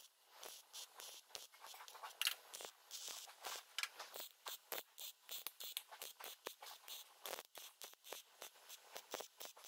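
Welding arc on a Toyota Prado's sheet-metal inner fender panel, crackling and popping irregularly in short runs with brief gaps, as the panel is tack-welded. The sharpest pop comes about two seconds in.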